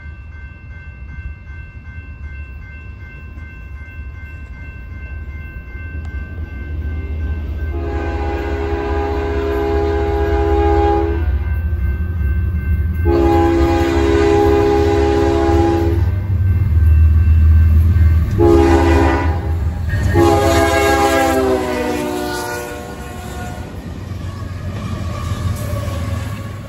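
BNSF diesel freight locomotive's horn sounding the grade-crossing signal as the train approaches: two long blasts, a short one and a final long one that drops in pitch as the locomotive passes. The locomotives' engine rumble builds to its loudest about two-thirds of the way in, then the train goes by.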